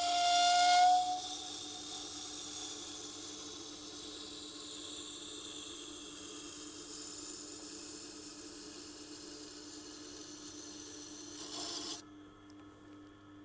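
Lawnmower blade being ground to a burr on a Tormek T8 wet grinder's wheel, dressed to a coarse 80 grit: a steady gritty hiss over the grinder's low motor hum. It opens with a brief high squeal and the grinding stops abruptly near the end, while the hum carries on.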